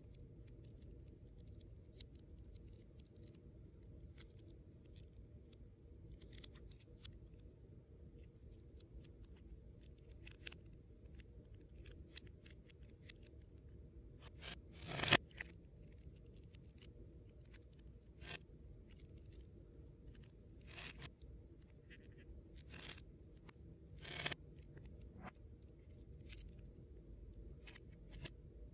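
Small LEGO plastic pieces being pulled apart from a micro-scale ship model and set down on a wooden table: scattered faint clicks and rattles, with one louder clatter about halfway through.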